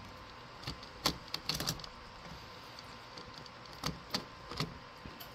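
Scattered light metallic clicks and taps as a Phillips screwdriver works small screws out of a pinball machine's coin door.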